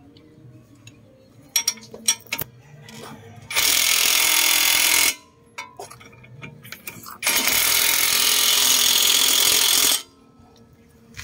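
Cordless impact wrench running on the strut-to-steering-knuckle bolts of a car's front suspension, in two bursts, the first about a second and a half long and the second about three seconds long. A few sharp metal clinks of tools come before the first burst.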